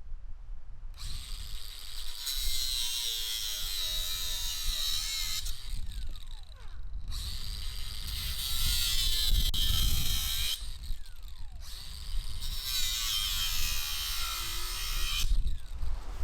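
A power tool cutting off large nails embedded in old logs: three cuts of about four seconds each, with short pauses in which the tool winds down in pitch.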